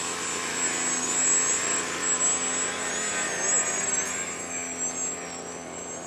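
Small foam aerobatic RC model airplane's motor and propeller whining as the plane hangs nose-up in a hover, the pitch wavering up and down.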